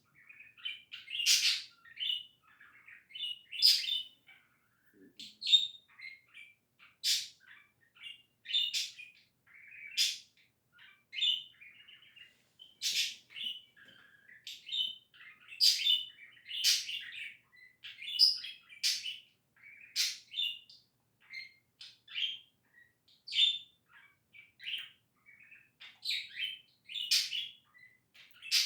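Budgerigar chattering and warbling: a continuous run of quick chirps, squeaky notes and sharp high clicks, several a second, the happy chatter of a contented pet budgie.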